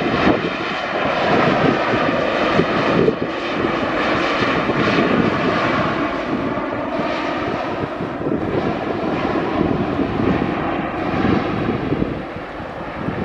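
Jet engine noise from an Airbus A350-900's Rolls-Royce Trent XWB turbofans as the airliner rolls along the runway, a continuous rush with a whining tone that eases a little as the aircraft moves away.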